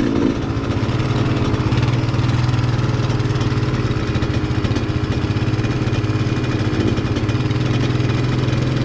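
ATV engine running at a steady, even pitch with no revving.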